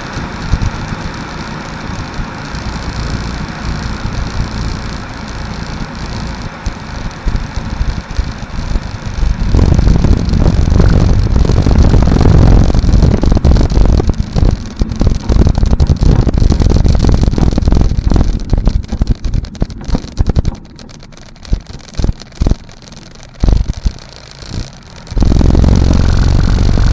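Cordouan HM 1100 ultralight landing: the engine at low power and air rushing past the wing-mounted microphone on final approach. About ten seconds in comes a loud low rumble of the wheels rolling on the runway, mixed with wind buffeting on the microphone. It drops away briefly with scattered thumps, and a loud steady rumble returns near the end.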